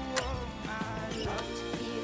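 Background music: a pop song playing in an instrumental stretch between sung lines.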